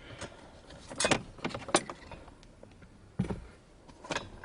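Scattered clicks and knocks of parts being handled and pulled loose from a Nissan 350Z's shifter assembly, with a duller thump about three seconds in.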